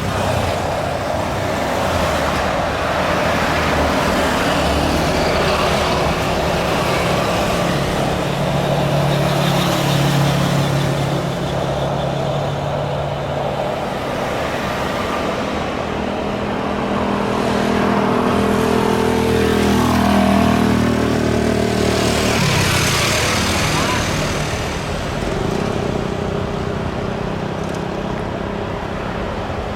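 Steady noise of passing road traffic. A vehicle engine's hum stops sharply about two-thirds of the way in, and a vehicle rushes past just after.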